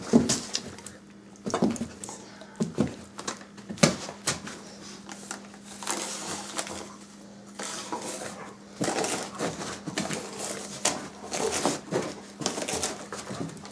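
A German shorthaired pointer tearing and crinkling gift-wrap paper off a present, in irregular rustles and rips that come thicker in the second half.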